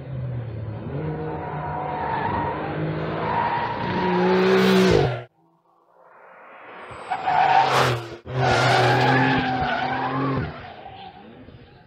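Porsche 911 GTS (992) turbocharged three-litre flat-six with its sports exhaust, driven hard on a race track: the engine note rises as the car accelerates, then cuts off abruptly about five seconds in. A second run builds up, with a surge of rushing noise as the car goes by, and the engine note fades out near the end.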